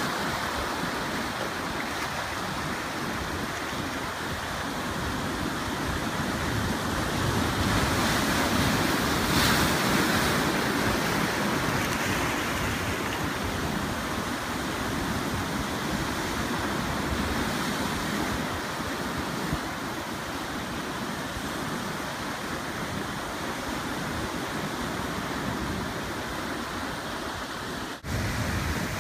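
Ocean surf washing onto the shore in a steady rush, swelling louder about a third of the way in, with a brief sharp drop about a second before the end.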